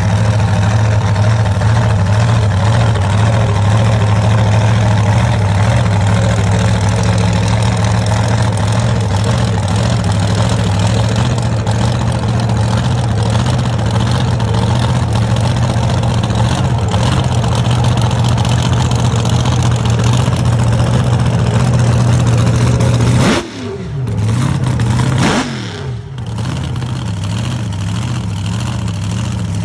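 Supercharged alcohol-burning engine of a Fiat-bodied drag-racing altered running at a loud, steady idle. Near the end its sound twice drops away briefly, its pitch falling each time, then carries on a little quieter.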